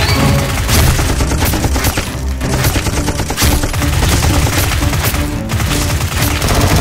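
Rapid, continuous gunfire sound effects, volleys of shots like automatic weapons, laid over background music.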